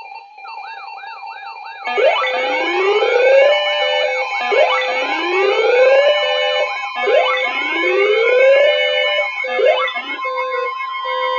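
Layered electronic emergency sirens, the alert sound that comes before a flash flood warning. A quieter warble gives way, about two seconds in, to a wail that sweeps upward roughly every two and a half seconds over a fast yelp and steady tones, with short beeps near the end.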